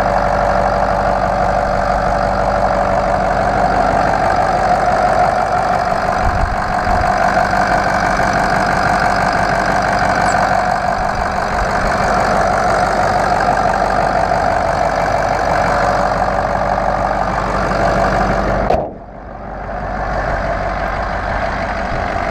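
2005 Ford F-350's 6.0-litre Power Stroke turbo-diesel V8 idling steadily under the open hood, running smoothly with no roughness. Near the end the sound drops out for a moment and comes back quieter.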